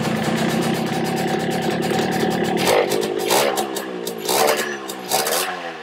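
Yamaha RX 135 Tiger's single-cylinder two-stroke engine running just after being kick-started, its first run since the spring that had jammed it was removed. It runs steadily at first, then is revved and let drop about four times in the second half.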